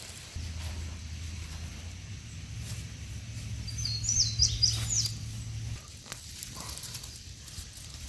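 A bird gives a quick run of high chirps about four seconds in, over a steady low hum that rises a step in pitch partway through and stops near six seconds. Faint clicks come in between.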